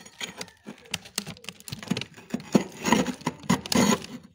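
Steel curry spoon scraping thick, crisp frost off the inside of a freezer: a run of irregular crackling crunches that grows busier and louder in the second half.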